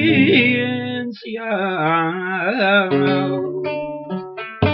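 Flamenco-style song: a singer draws out the word "conciencia" in a long, wavering melismatic line over strummed Spanish guitar. The guitar then rings on alone in held chords, with a sharp strum near the end.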